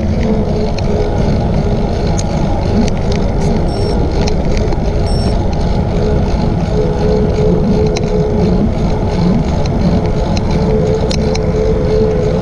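Wind noise on the microphone of a camera carried on a bicycle moving at about 10 mph: a steady low rush with a faint hum held underneath.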